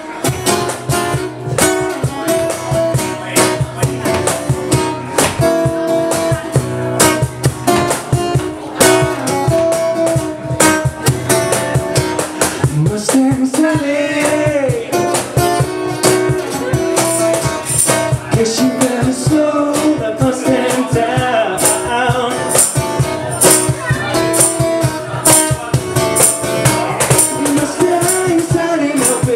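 Live acoustic guitar strummed in a steady rhythm, with a man singing over it from about halfway through.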